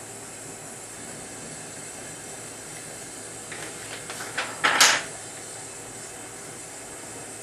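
Steady hiss of gas torch flames on a glass lathe. About three and a half seconds in come a few light clicks, then a short, loud burst near five seconds.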